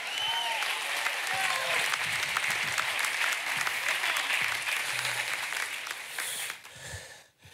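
Church congregation applauding, with a few shouts near the start; the applause dies away about six and a half seconds in.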